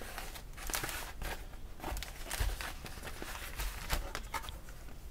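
Plastic mailer bag and thin foam wrap rustling and crinkling in irregular handling noises as a package is unwrapped by hand.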